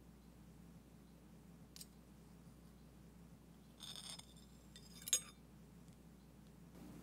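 Metal offset spatula and fork setting a slice of cheesecake down on a china plate: a faint tick, a brief scrape about four seconds in, then a sharp clink of metal on the plate about a second later.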